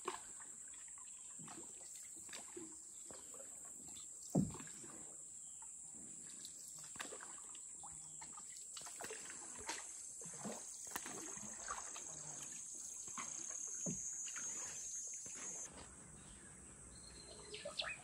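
Water splashing and trickling around a canoe moving through the water, with scattered knocks, the loudest a few seconds in. Behind it runs a steady high-pitched insect drone that stops abruptly near the end, leaving quieter ambience with a few bird calls.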